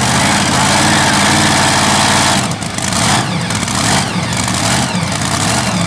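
Modified pulling tractor's supercharged engines running hard under load on the sled. About halfway through the engine note drops, then comes back in a few surges of throttle.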